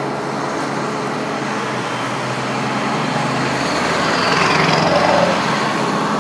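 Heavy trucks and a pickup driving slowly past at close range, engines and tyres on the road. The noise swells to its loudest about four to five seconds in, with a whine falling in pitch.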